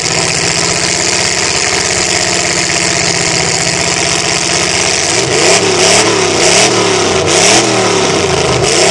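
Mud-bogging pickup truck's engine running steadily, then from about five seconds in revving up and down again and again, about four times, as its tires spin and throw mud.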